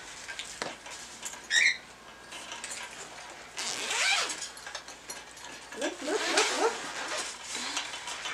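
Fabric carrying bag being handled and unzipped: rustling of the bag and a zipper being pulled, with a short squeak about a second and a half in.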